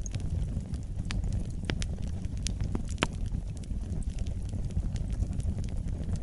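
Fire burning in a fireplace: a steady low rumble of flame with irregular sharp crackles and pops, the strongest about three seconds in.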